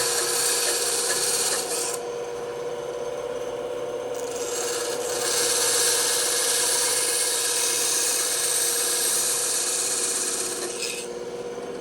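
Bandsaw running with a steady hum while its blade cuts through wood, a hissing rasp. The cutting noise eases off about two seconds in and picks up again about five seconds in.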